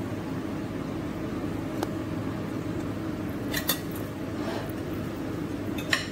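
Steady low machinery hum aboard a ship, with a metal spoon clinking against a ceramic plate of fried rice a few times, loudest near the end.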